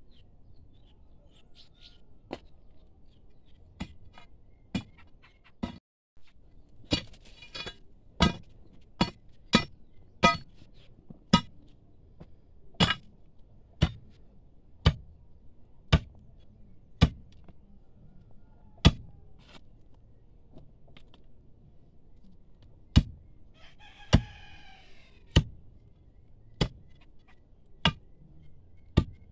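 A metal digging tool striking stony ground, about one sharp, ringing blow a second, with a gap of a few seconds before the last handful of blows. A rooster crows once about 24 seconds in.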